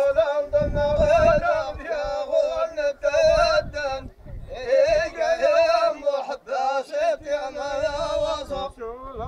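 A man singing in Moroccan folk style: long, high, wavering phrases broken by short breaths, with scattered low frame-drum thumps underneath.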